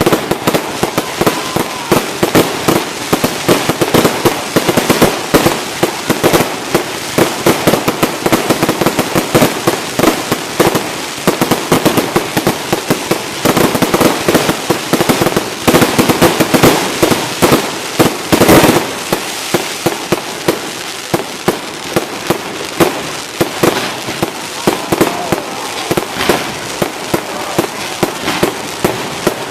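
Aerial fireworks going off in a rapid barrage, dozens of sharp bangs and crackling pops overlapping without pause, with a heavier burst about two-thirds of the way through.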